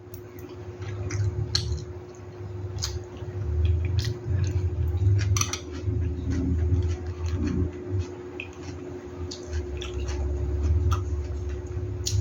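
Kitchen utensils and dishes clinking, tapping and scraping as food is prepared, scattered sharp clicks over a steady low hum and an uneven low rumble.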